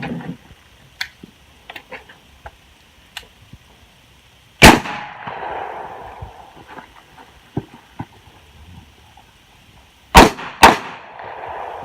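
Handgun shots during an IDPA stage: a single shot about a third of the way in, then two quick shots about half a second apart near the end, each followed by a short echo. Faint clicks and knocks come between the shots.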